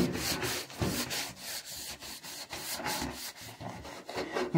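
Soapy scouring sponge scrubbing a window frame in quick, repeated strokes.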